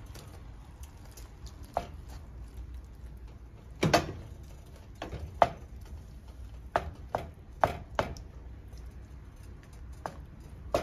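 Wooden spoon knocking against a skillet while crawfish tails are stirred into a thick cream sauce: a string of irregular sharp taps, the loudest about four seconds in.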